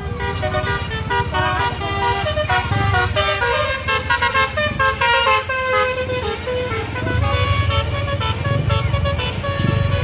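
A tour bus's telolet basuri multi-tone air horn playing a quick tune of short notes stepping up and down, over the low rumble of bus engines and traffic.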